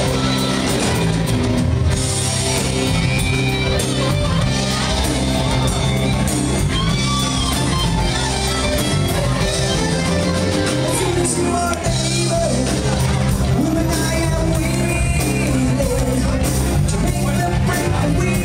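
Live rock band playing loudly: electric guitars, drums and keyboard, with a singer on a microphone.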